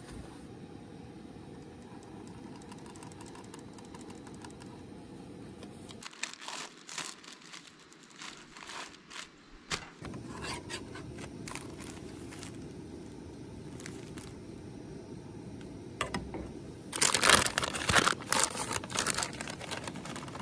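Plastic food packaging crinkling as it is handled, in scattered bursts with a louder, denser spell of crinkling near the end as a bag of shredded cheese is picked up, over a steady background hiss.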